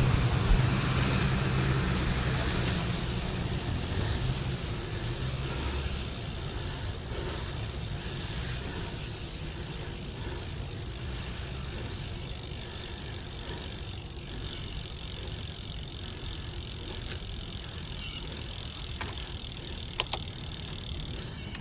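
A motor vehicle passes on the street, its engine and tyre noise loudest at first and fading away over the first several seconds, leaving steady, quieter traffic noise. A short sharp click comes near the end.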